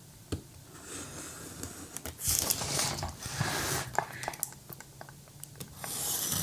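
Cardboard product packaging being handled and opened: scattered clicks and taps, with louder scraping and rustling of the box about two to four seconds in and again near the end.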